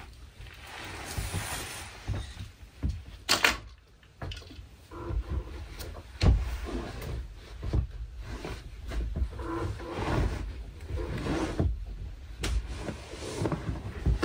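A large folding foam mattress being shoved, folded and dragged over a wooden floor: irregular thumps, scrapes and rustles, with a sharp knock about three and a half seconds in and a heavier thump about six seconds in.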